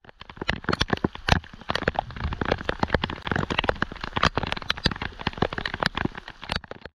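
Heavy rain falling on the sea surface, a dense, irregular patter of many sharp close drop strikes. It cuts off suddenly near the end.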